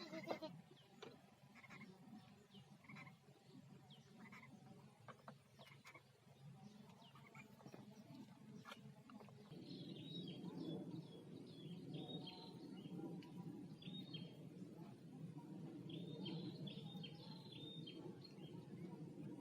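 Quiet open-air ambience with faint scattered ticks, then from about halfway a low steady rumble and small bird calls: clusters of short, high chirps, each dropping at the end, repeated several times.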